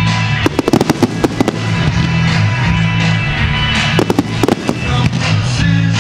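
Fireworks going off in quick clusters of sharp bangs, first from about half a second to a second and a half in and again around four seconds in, over music with a low bass line.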